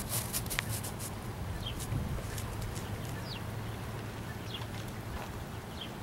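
Outdoor street ambience: a steady low hum, with small birds chirping briefly about four times. There are a few sharp clicks in the first second.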